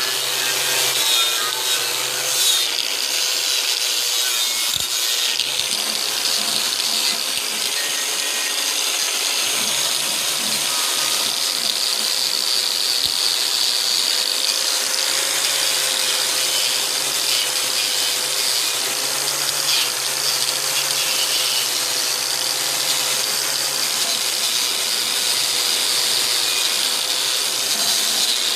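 Angle grinder with a wire-brush wheel running steadily against the cast-iron block of a John Deere Type E hit-and-miss engine, stripping off old paint and rust. It makes a steady motor whine under a constant scratchy hiss.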